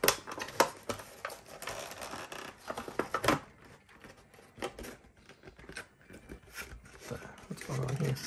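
Clear plastic blister packaging of a Pokémon card collection being pried and pulled apart by hand: crinkling and crackling with sharp clicks, loudest at the start and about three seconds in, quieter in the middle and busier again near the end.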